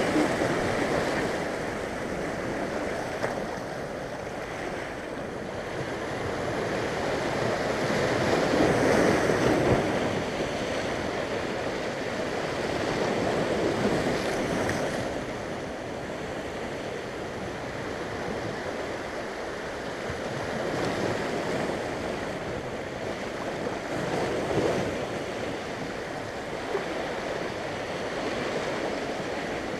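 Sea waves washing in and breaking over the rocks at the waterline, the surf swelling and falling back every several seconds.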